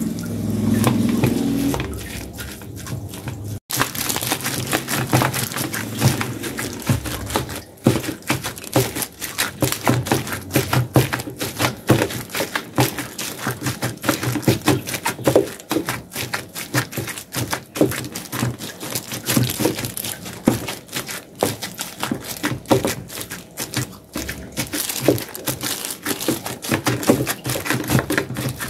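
A metal spoon pounding and mashing cooked rice in a metal pot: rapid, irregular presses, scrapes and knocks against the pot as the rice is worked until fairly smooth.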